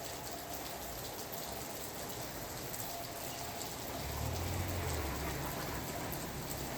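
Steady rain falling, with the clicks of separate drops hitting close by. A low rumble swells for about a second and a half around four seconds in.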